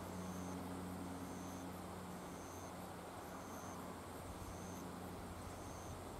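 Outdoor ambience with an insect calling in a steady rhythm, one short high chirp a little less than once a second, over a low steady hum.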